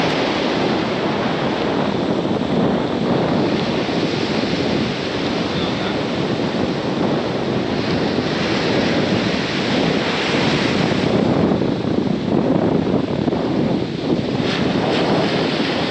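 Sea surf breaking and washing up a sandy beach, with wind buffeting the microphone.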